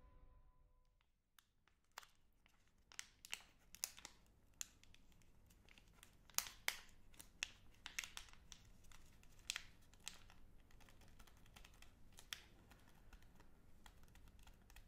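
Wrapper of a Magnum Double Chocolate bar crinkled and handled between the fingers close to the microphone. It gives irregular sharp crackles and clicks, starting about two seconds in.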